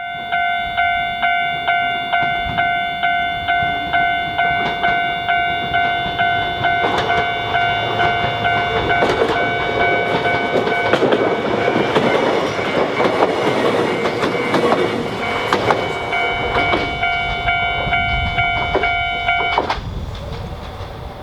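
Railway level-crossing warning bell ringing in a steady pulse about twice a second while a train passes, its wheels rumbling and clacking over the rails in the middle. The bell stops abruptly near the end.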